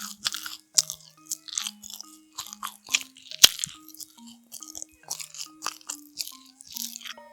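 Close-up eating sounds: repeated crisp bites and chewing of a double cheese pound cake, several crunches a second, over light background music.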